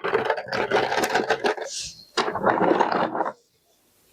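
Crisp fried macaroni snack rattling and crackling in two bouts of about a second and a half each, stopping abruptly a little over three seconds in.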